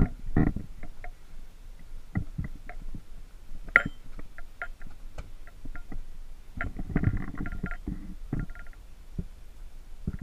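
Medicine balls thudding against a corrugated-steel shed wall and being caught and dropped. There are irregular knocks, with a sharp one about four seconds in and a busier run of thuds near the end.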